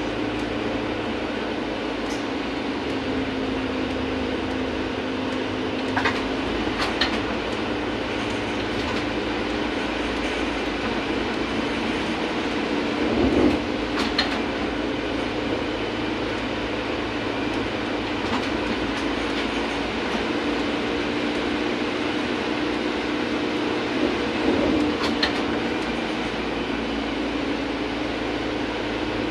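VMZ-100 trolleybus heard from inside while under way: a steady running noise with an electric hum that shifts in pitch a few times, and a few sharp clicks and rattles from the body, the loudest about halfway through.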